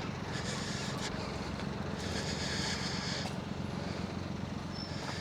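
An engine running steadily at idle, a low even hum with no change in speed.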